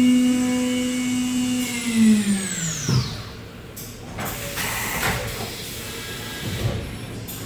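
Okuma Genos M560-V CNC machining center spindle spinning at high speed with a steady whine, then winding down to a stop over about a second and a half. A few seconds of hissing and light knocks follow while the spindle is stopped. Near the end the spindle starts again with a rising whine.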